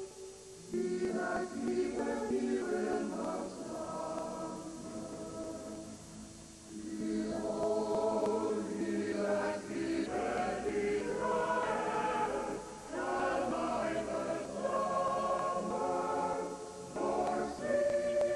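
Music with a choir singing sustained chords in slow phrases.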